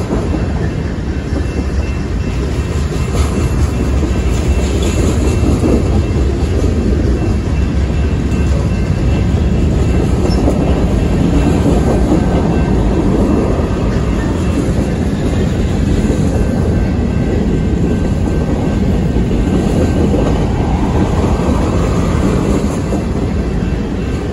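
Freight train's tank cars and covered hopper cars rolling past: a steady, loud noise of steel wheels running on the rails.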